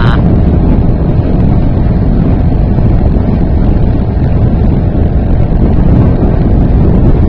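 A 3.5 hp Sea King outboard motor running steadily, pushing an inflatable raft across the water, with heavy wind noise on the microphone.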